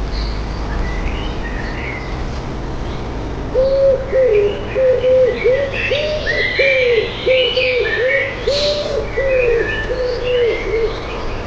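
Birds calling: one bird gives a rapid series of low, repeated notes from a few seconds in until near the end, while others chirp higher and more sparsely.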